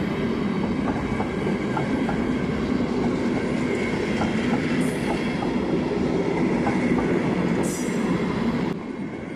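Passenger railway coaches rolling past, wheels clicking over the rail joints, with two brief high wheel squeals about five and nearly eight seconds in. The noise drops off near the end as the last coach goes by.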